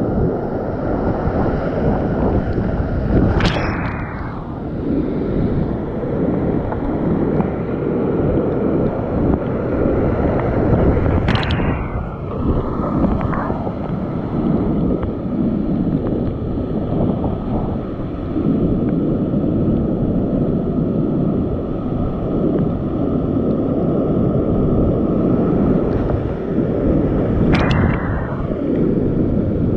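Loud, steady rush of churning whitewater rapids heard from the cockpit of a whitewater kayak, with water and spray buffeting the camera microphone. Three brief sharp splashes stand out, near the start, in the middle and near the end.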